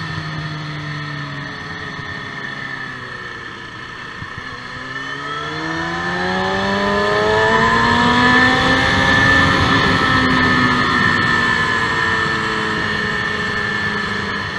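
KTM motorcycle engine with wind rush. The revs fall as the bike slows for a corner, bottoming out about four seconds in. They then climb steadily under acceleration to a high, held note around eight to ten seconds in, and ease off slightly near the end.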